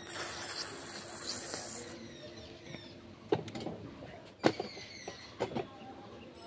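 A person blowing their nose: a long, hissing blow that stops sharply about two seconds in, then several short, sharp sounds.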